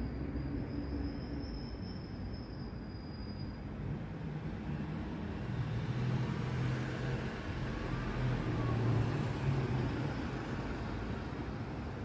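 Outdoor background ambience: a steady low rumble with a noisy haze over it, swelling in the second half. A faint, thin high tone sounds over the first few seconds.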